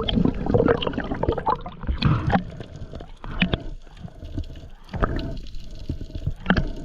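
Water sloshing and gurgling around a spearfisher, broken by irregular splashes and sharp knocks.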